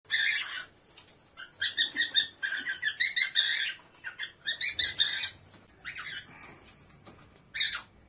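Several cockatiels chirping and calling in quick runs of short, shrill notes, with brief pauses between the runs.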